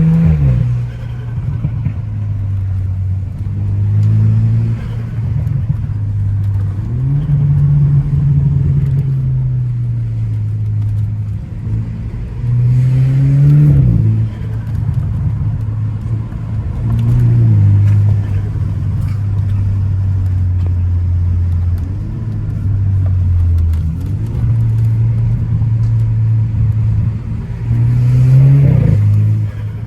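Car engine under hard acceleration on a twisty road, the revs climbing and then dropping sharply at each upshift, several times over, with stretches of steady cruising between the pulls.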